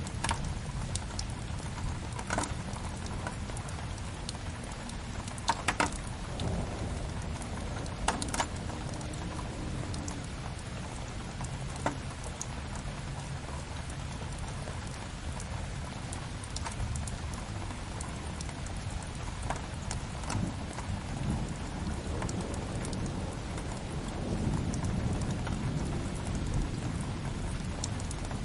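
Steady rain with a low rumble beneath it, and the sharp crackles and pops of a wood fire scattered through, a small cluster about five to six seconds in and another near eight seconds.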